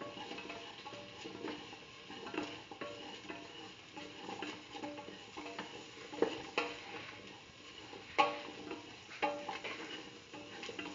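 Beetroot, red chillies and shallots being stirred and scraped around a steel pan, with irregular scrapes and knocks of the utensil on the metal about once a second, the sharpest about eight seconds in, over a light sizzle of the vegetables frying in oil.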